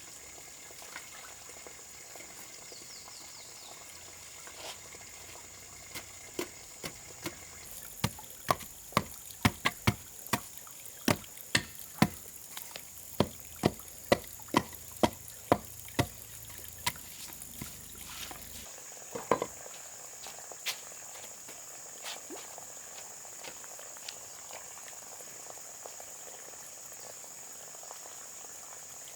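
A run of about twenty sharp knocks, roughly two a second, for about ten seconds, then a single louder knock, over a steady high hiss.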